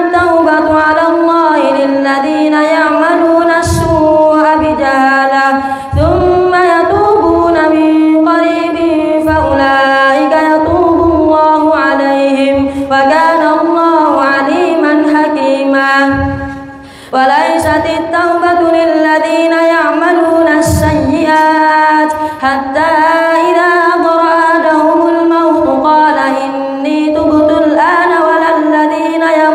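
A boy's solo voice chanting Quranic recitation in the melodic tajweed style, with long held notes that waver and glide between pitches, broken by short breaths and one longer pause a little past halfway.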